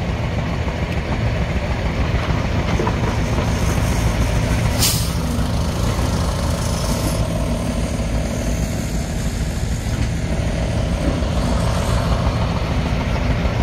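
Truck engine running steadily, with a short hiss about five seconds in.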